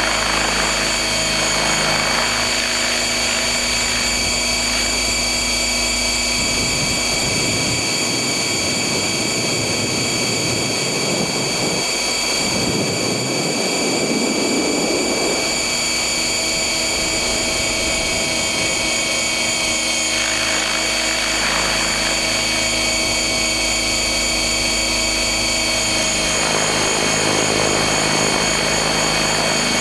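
A stretched Trex600 electric RC helicopter with 690 mm blades, heard from directly beneath: a steady high motor and gear whine over the rotor's hum. A rushing noise swells and fades about halfway through.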